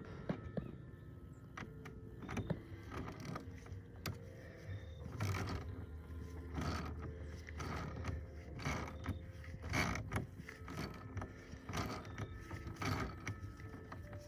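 Hand ratchet tightening a battery terminal nut with short strokes about once a second, the pawl clicking on each stroke.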